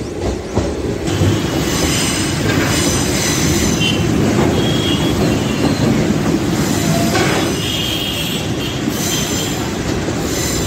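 DEMU passenger train running, heard from its open doorway: a steady rumble of wheels on rail with several spells of high-pitched wheel squeal.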